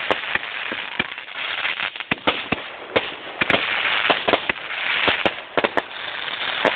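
A fireworks finale barrage: many sharp bangs and pops, irregular and close together, over a continuous hiss and crackle.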